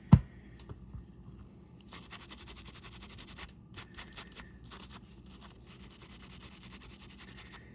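A sharp knock right at the start. It is followed by fast back-and-forth scrubbing strokes, several a second with short breaks, as gunk is scrubbed off a G-Shock watch's resin case.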